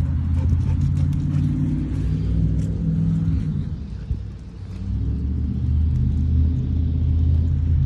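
A loud low rumble with an engine-like hum, easing off about halfway through and then building again.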